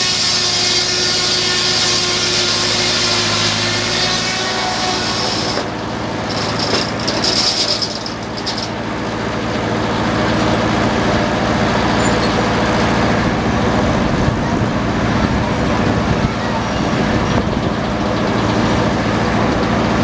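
Antique belt-driven circular sawmill sawing a log into a 4/4 board: the big blade cuts with a high-pitched whine for about the first five seconds, and the cut breaks off and ends by about eight seconds in. For the rest, the blade and flat-belt drive run steadily with no cut, until the next cut begins.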